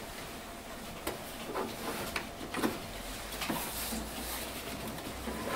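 Light handling noise on an inkjet printer's plastic casing: a few soft taps and clicks and some rustling as hands grip it, with a low rumble in the second half.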